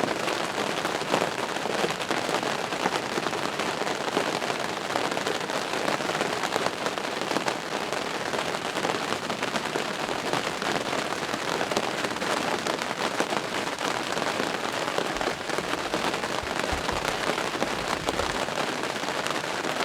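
Steady rain falling, with a dense, even hiss of countless close drop hits.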